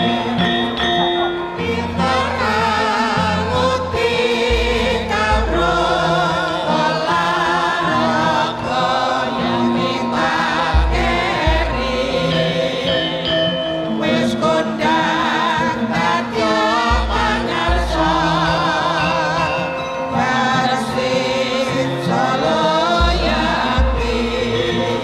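Javanese gamelan music with a sung chorus: wavering, ornamented voices over a dense, steady layer of tuned instruments, with a deep low note coming back every few seconds.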